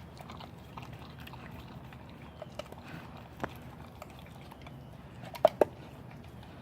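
German shepherd puppy chewing a raw meal of meat and bone, with scattered small clicks and two sharp, loud clicks about five and a half seconds in.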